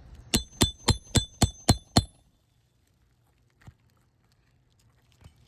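Hammer striking a steel nail-removal tool seven times in quick succession, about four blows a second, each with a short metallic ring, working a shingle nail loose; then quiet.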